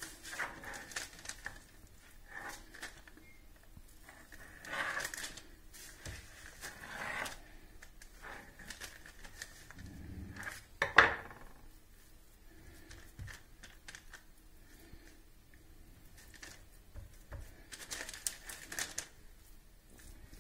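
Knife cutting through a slab of minced meat on baking paper, with scattered soft taps and crinkling of the paper as the wedges are pressed and separated by hand. One sharper knock about eleven seconds in.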